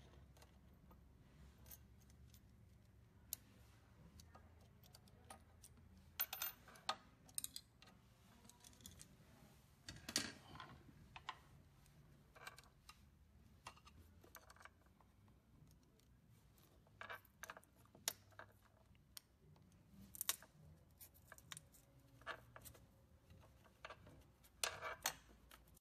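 Faint, scattered metallic clicks and taps in a few short clusters, from a hand tool and small metal parts being handled inside an exercise machine's metal housing.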